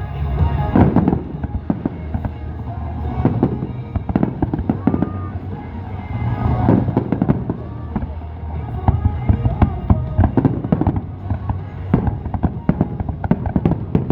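Fireworks shells bursting in quick, overlapping bangs throughout, over music played on loudspeakers.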